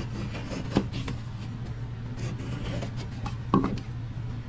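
Utility knife scoring the back of a drywall patch, cutting into the gypsum but not through the front paper: light scraping strokes with two sharper clicks, one about a second in and one about three and a half seconds in.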